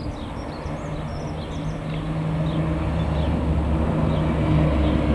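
Red DB double-deck regional train approaching, its rumble and steady hum growing louder as it nears. Small birds chirp over it, more often early on.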